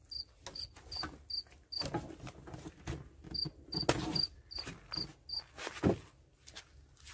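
A cricket chirping in short, evenly spaced pulses about two or three times a second, pausing for a moment about two seconds in. Over it, knocks and clunks of hands handling and latching the hard plastic shell of a James Baroud Evasion rooftop tent, the loudest a thump near the end.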